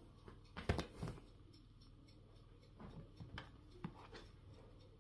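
Handling noise from a cat being played with on a sofa: a couple of soft thumps about a second in, then a few light taps and clicks. No meowing.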